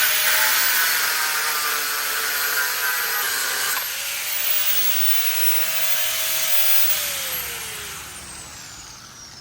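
Handheld electric power tool working the metal of a seat bracket to enlarge its bolt holes, a loud steady whir. About four seconds in the sound changes to a steadier hum; near the end it winds down, its pitch falling as the motor spins down after the trigger is released.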